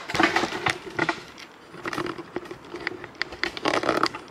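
Rustling and small clicks of handling, in four irregular bursts.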